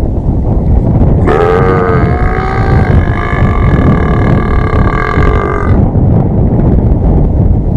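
A person's long, drawn-out burp lasting about four and a half seconds, starting about a second in and wavering in pitch at first before holding steady. Wind rumbles on the microphone throughout.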